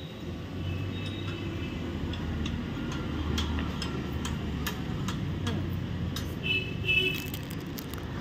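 Scattered metal clicks and ticks of hand tools and parts as a bicycle's rear wheel is loosened and taken off, over a steady low traffic hum. A brief high warbling tone sounds about six and a half seconds in.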